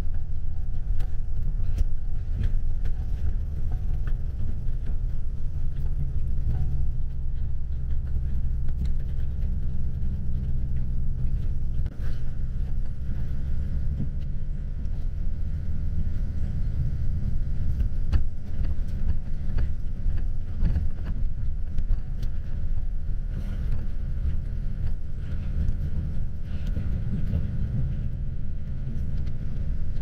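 Steady low rumble of road and engine noise inside a moving coach bus's cabin, partly stripped out by noise reduction.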